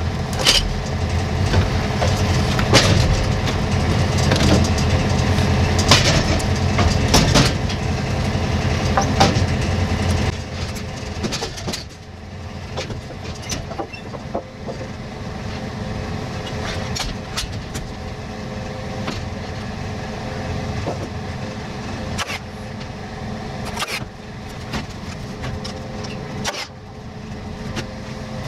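An engine running steadily, louder for about the first ten seconds and then settling quieter, with scattered sharp knocks and clacks of lumber being handled.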